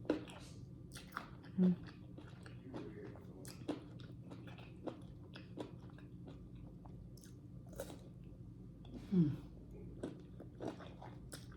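Close-up chewing and wet, smacking mouth sounds of someone eating juicy fresh fruit, with two brief falling hums, about two seconds in and again near the end.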